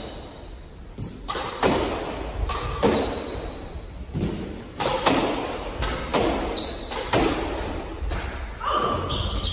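A squash doubles rally: the ball cracking off racquets and the walls about once or twice a second, each hit echoing around the enclosed court. Short high squeaks of court shoes on the hardwood floor fall between the hits.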